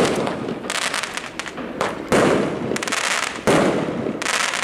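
Fireworks going off: two loud bangs about two and three and a half seconds in, each dying away over a second, with scattered crackling between them.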